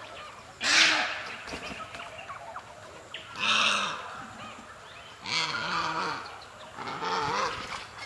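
White-necked Heron giving four harsh, croaking calls a second or two apart, each under a second long, with the first the loudest. Other small birds chatter faintly behind.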